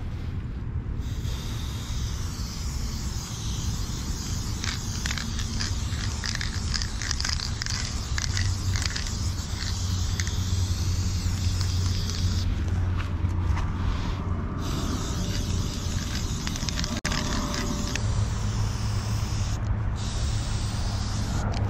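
Aerosol spray-paint can hissing in long sprays with short spurts between, stopping briefly about halfway through before spraying again; a steady low rumble runs underneath.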